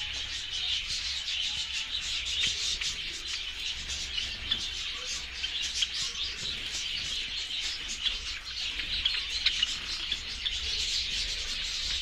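A flock of Java sparrows chirping without a break, many short overlapping chip notes from several birds at once.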